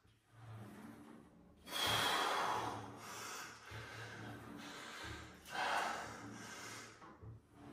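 A man's heavy, forceful breathing as he strains through chest-fly reps on a pec deck machine. There are two loud sharp exhales, about two seconds in and again near six seconds, with quieter breaths between them.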